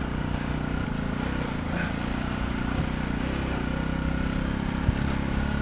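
Yamaha WR125's single-cylinder four-stroke engine running steadily as the trail bike is ridden.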